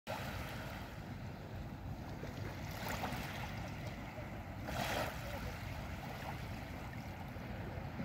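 Small waves of a calm sea lapping and washing up a sandy, pebbly shore, swelling twice, about three and five seconds in, over a steady low rumble.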